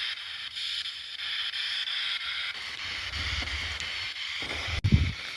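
Spirit box sweeping through radio static: a steady hiss with faint regular stepping and no voice coming through. Low dull thumps come about three seconds in, with a louder one near the end.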